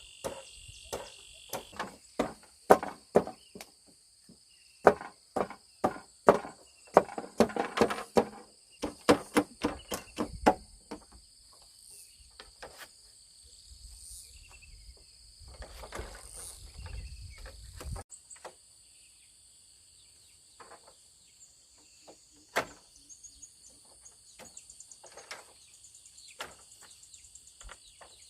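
Repeated sharp knocks of tool strikes, several a second for about the first ten seconds, then only a few scattered knocks. A steady high insect drone runs throughout.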